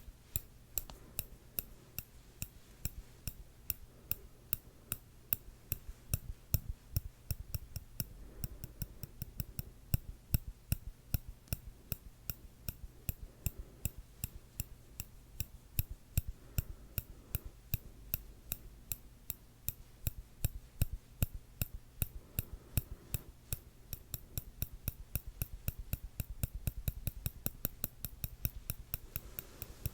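Metal tweezers tapped and clicked close to the microphone: a run of crisp, bright clicks several times a second, coming faster and denser near the end.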